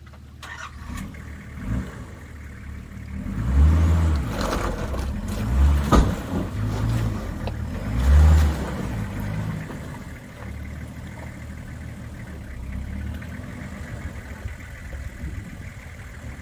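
Nissan Patrol GU four-wheel drive's engine revving in three loud surges as it climbs a rocky track, with a sharp knock about six seconds in, then settling to a steadier lower engine note.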